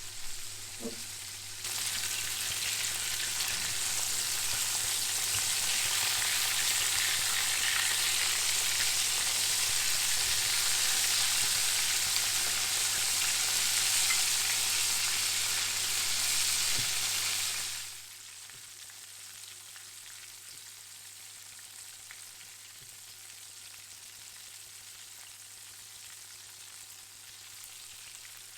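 Chicken frying in hot oil, a steady sizzle that drops suddenly to a much quieter sizzle about eighteen seconds in.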